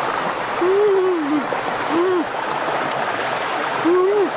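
A woman humming 'mmm' with relish while eating dragon fruit: three short hums that rise and fall in pitch, over the steady rush of a rocky stream.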